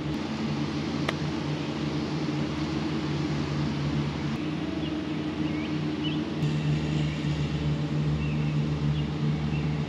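A steady low mechanical hum, like a distant engine running, over outdoor background noise, with no distinct event standing out.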